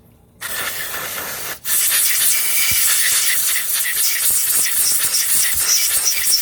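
Loud hiss of a pressurised jet sprayed into a 6003 ball bearing to flush it out. It starts about half a second in, breaks off briefly at about a second and a half, then runs on steadily.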